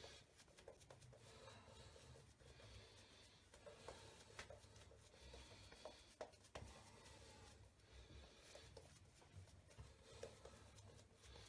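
Faint swishing of a Zenith Barberpole shaving brush working lather over the face, with a few small clicks.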